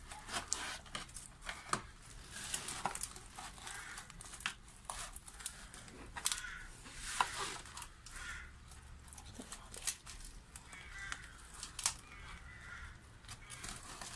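Thin plastic bottle crinkling and crackling under the hands as onion sets are pushed into holes cut in its side, with scattered small clicks and rustles of soil and onion skins.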